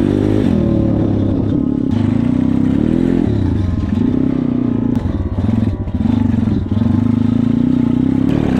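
140cc pit bike engine running and revving up and down repeatedly, its pitch rising and falling several times as the throttle is worked.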